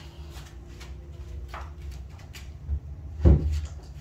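Light handling knocks, then one heavy low thud about three seconds in: the lead-acid car battery just lifted out of the sound system being set down.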